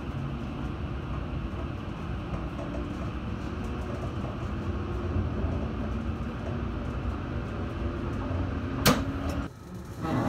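Interior of an E7 series Shinkansen car pulling out of the station: a steady low running rumble of the train getting under way, with a few faint steady tones. A sharp click near the end, after which the sound briefly drops away.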